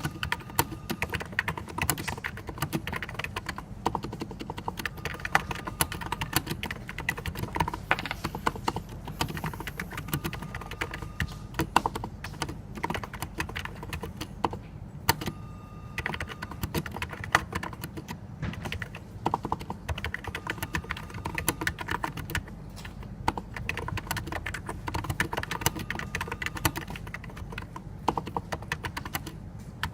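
Continuous fast typing on a NiZ Plum 84 keyboard, a Topre-clone board with electro-capacitive rubber-dome switches, keystrokes following one another in quick runs.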